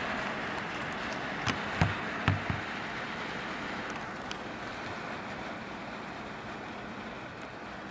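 Steady rain falling in a thunderstorm, with three short knocks about one and a half to two and a half seconds in.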